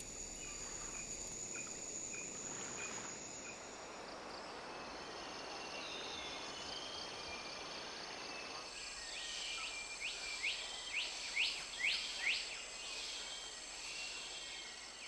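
Tropical rainforest ambience: a steady drone and trilling of insects, with a series of about eight quick rising calls, each louder than the last, from about nine seconds in.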